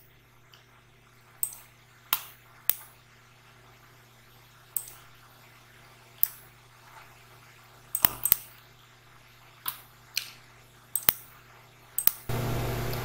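Computer mouse clicking about a dozen times at uneven intervals, some in quick double clicks, over a low steady hum. A steady hiss comes up near the end.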